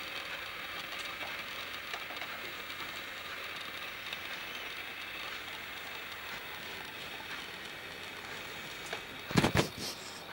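Steady hiss, with a brief cluster of loud knocks or bumps about nine and a half seconds in.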